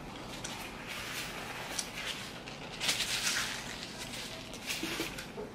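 Close-miked mouth sounds of a person chewing a mouthful of food, with soft wet clicks throughout and a louder hissy noise about three seconds in.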